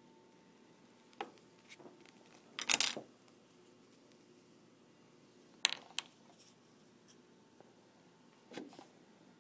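Scattered small clicks and knocks from hands handling a superconductor puck against a magnet track. The loudest is a short clatter about three seconds in, then a sharp click a little before six seconds and a few softer taps near the end.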